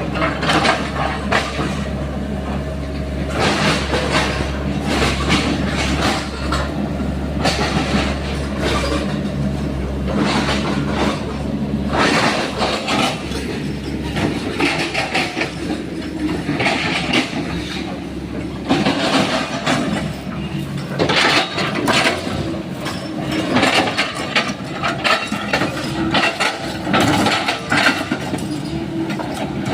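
Sany SY135F excavator's diesel engine running under load while its bucket chops oil palm trunks, with irregular knocks and crunching wood throughout. The deep engine note drops about twelve seconds in.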